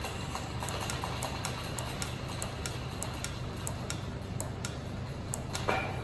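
Light, irregular clicking of a SRAM Red road-bike brake-shift lever being handled and worked by hand, over a steady low hum, with one louder knock near the end.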